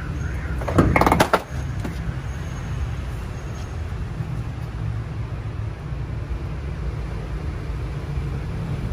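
Steady low rumble of a vehicle engine running, with a short clatter of loud knocks about a second in.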